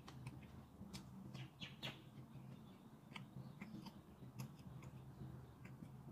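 Faint eating sounds: small, irregular clicks and smacks of chewing, and of fingers picking rice and fried food off a ceramic plate.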